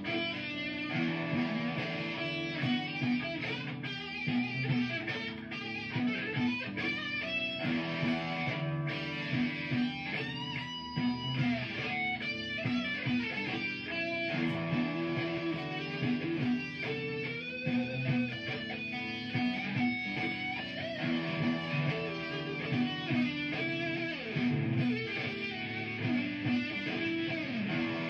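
Electric guitar improvising a lead solo, with bent notes, over a repeating looped guitar backing.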